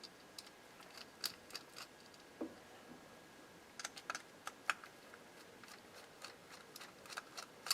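Small irregular clicks and taps of a screwdriver and loose metal parts being handled while the turn-signal harness screws are taken out of a 1955 Chevrolet steering column, coming in short clusters. A single dull knock comes about two and a half seconds in.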